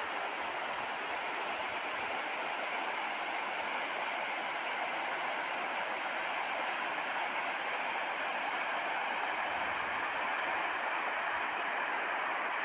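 Mountain river rushing over rocks in its rapids: a steady, even hiss of running water.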